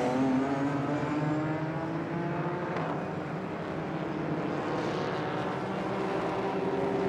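Racing car engines running on the circuit beside the pits, a continuous blend of engine notes that shift slowly in pitch.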